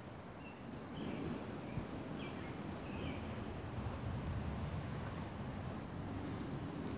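Light rain falling in a sun shower, a steady hiss that grows louder about a second in. Over it runs a high, pulsing trill of about four pulses a second, insect-like.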